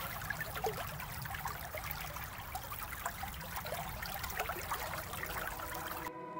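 Small woodland stream flowing over a shallow drop, a steady rush of water with many small gurgles. It cuts off suddenly near the end as soft ambient music begins.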